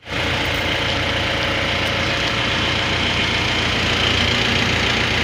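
Mahindra Bolero's diesel engine idling steadily.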